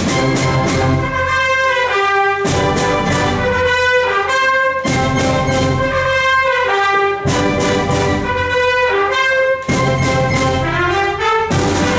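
Concert wind band playing, with brass prominent over the woodwinds. The music moves in repeated phrases, each opening with a loud accented chord roughly every two and a half seconds and followed by held and stepping notes.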